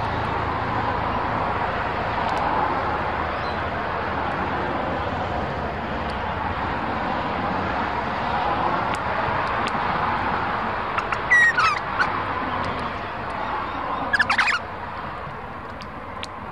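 Two short bursts of bird calls, one about eleven seconds in and one about fourteen seconds in, over a steady rushing background that eases off a little toward the end.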